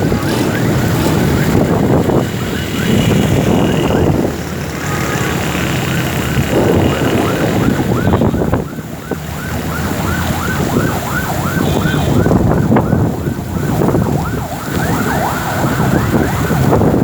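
Heavy rain and traffic noise, with wind buffeting the microphone. From about six seconds in, a siren wails in a fast, rapidly repeating up-and-down sweep, roughly three cycles a second.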